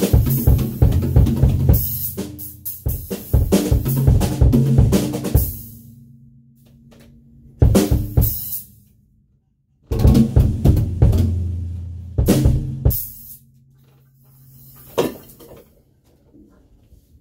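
DW acoustic drum kit played in bursts of fast fills with kick, snare and cymbal crashes. The cymbals ring out in the gaps between bursts, and a last single hit about fifteen seconds in lets the playing die away.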